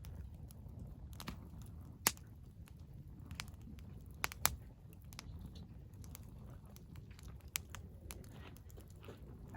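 Wood fire crackling: irregular sharp pops and snaps, the loudest about two seconds in and a quick pair a little after four seconds, over a low steady rumble.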